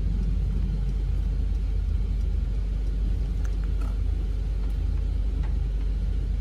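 Steady low rumble of a truck's diesel engine and running gear, heard inside the cab as it drives.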